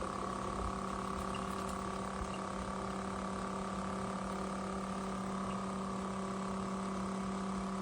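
Steady electric hum of a small machine: one low tone with a fainter overtone above it, a higher whine and a light hiss.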